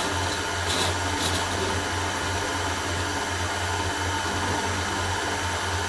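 Electric stand mixer running steadily, beating cake batter as flour is added, with a couple of faint ticks about a second in.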